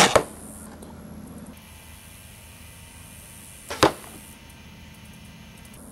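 Two shots from a Mathews Legacy compound bow at a foam 3D deer target: each is a sharp snap of the string, followed a split second later by the thwack of the arrow hitting the target. One comes at the start and the other about four seconds in.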